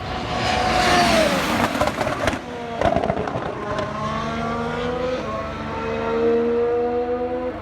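A Honda 1.6-litre V6 turbo-hybrid Formula 1 engine passes close by. Its note drops as the driver lifts off, and the exhaust crackles and pops on the overrun about two to three seconds in. The note then rises again in steps through upshifts as the car accelerates away.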